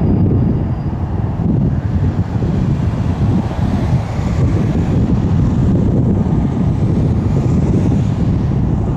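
Low, steady rumble of jet aircraft engines under heavy wind buffeting on the microphone, with a faint engine whine drifting in the upper range about halfway through.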